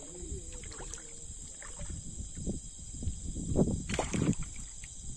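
Water splashing and sloshing in irregular bursts that grow louder from about two and a half seconds in, loudest around four seconds, then die down, over a steady high-pitched drone.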